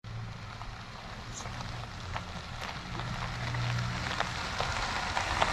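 A Jeep approaching on a dirt road: a low engine hum with the crackle and pops of tyres rolling over gravel, growing louder as it nears.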